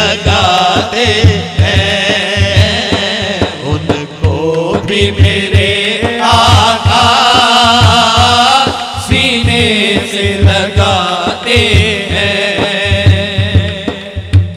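Naat being sung by a male reciter in long, wavering melismatic phrases, with an evenly repeating low pulse underneath.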